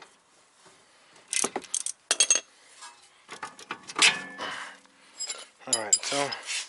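Steel sockets, extensions and a wrench clinking and clattering against each other and the paving stones, several sharp metallic clinks with brief ringing. A short bit of voice near the end.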